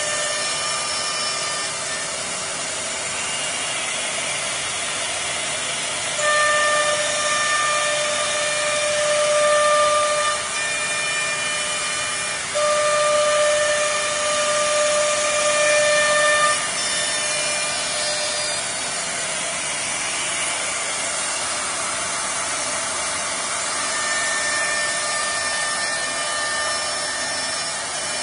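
Philicam four-spindle CNC router running, with a steady hiss over it. A high spindle whine with overtones grows louder in stretches of about four seconds: about six seconds in, again about twelve seconds in, and near the end.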